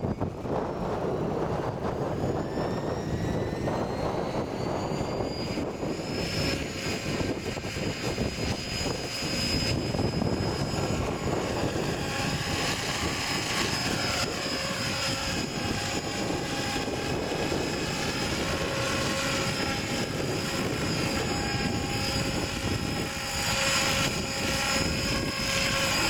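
700-size radio-controlled scale helicopter (Airwolf body) spooling up: the rotor and drive whine rises in pitch over the first six seconds, then holds steady as it lifts off and hovers, over a steady rush of wind on the microphone.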